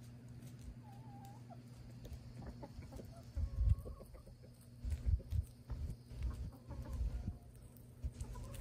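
Free-range hens clucking softly as they forage, over a steady low hum, with irregular low thumps from about three seconds in.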